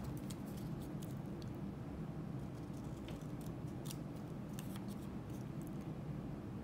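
Scissors snipping through paper in short, scattered cuts, over a steady low room hum.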